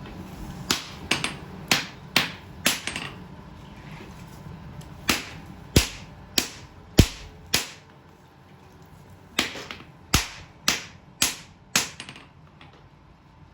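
Hammer blows on steel on an anvil as a katana is forged, in three runs of about five blows each, roughly two a second. Each strike is sharp with a short ring.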